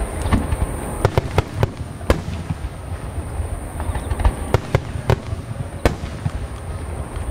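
Large fireworks display: aerial shells bursting with many sharp cracks in quick, irregular succession over a constant low rumble of booms.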